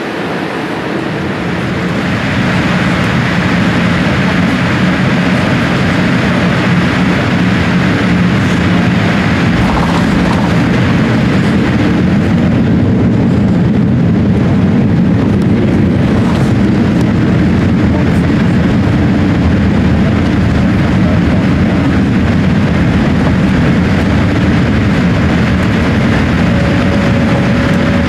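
Cabin noise beside the wing of a Boeing 787-8 rolling fast along the runway: its GE GEnx engine and the rolling airframe give a loud, steady rush with a low hum, building up over the first couple of seconds. A faint steady whine joins near the end.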